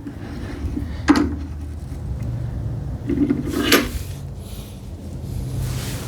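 Woodworking clamps being set on a glued-up cabinet case: two sharp knocks with some clatter of metal and wood, about a second in and again a little before the middle, over a low steady hum.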